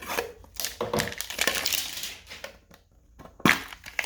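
Plastic packaging crackling as a card mini tin and its packs are unwrapped and handled, then two sharp clicks about three and a half seconds in, typical of the thin metal tin.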